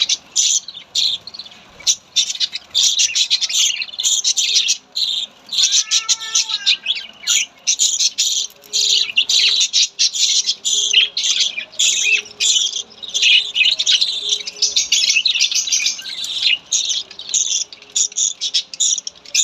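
Budgerigars chattering: a dense, continuous stream of rapid high chirps and warbles, with one lower, arching whistled call about six seconds in.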